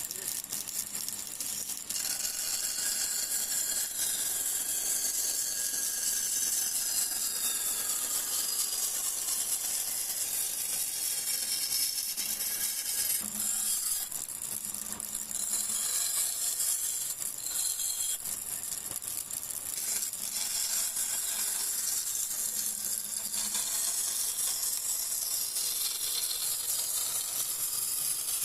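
Abrasive tool working on steel, with a steady high hiss and a few slow downward pitch slides early on.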